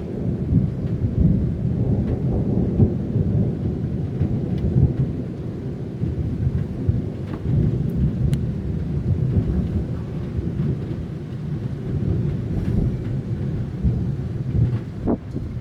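Thunder from a thunderstorm a few kilometres away, rumbling continuously and swelling and fading without a break.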